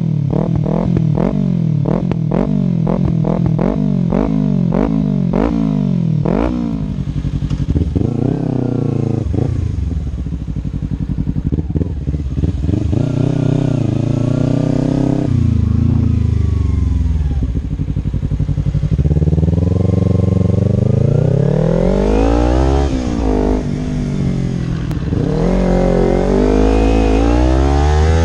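Kawasaki Ninja 300's parallel-twin engine through a Stealth Performance slip-on exhaust. For the first six seconds or so it is revved in quick throttle blips at a standstill, about two a second, each rising and falling back. Then, riding, the revs climb and drop back at each gear change as the bike accelerates.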